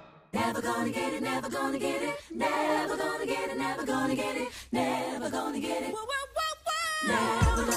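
A cappella singing with several voices, broken by two short pauses. Near the end comes a high, wavering sung note, and then a low beat comes in.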